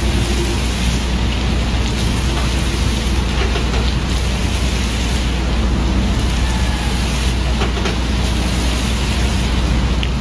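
Steady splashing of a curtain of falling water, like heavy rain on a hard surface.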